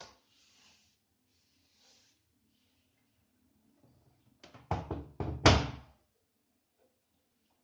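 Door of an LG F2J5NN3W front-loading washing machine being handled at the end of the wash cycle: a quick run of clunks and knocks about halfway through, the last one the loudest.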